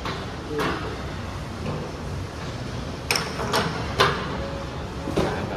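Gym weights clanking: about five sharp metal knocks, the loudest about four seconds in, over a steady background hum.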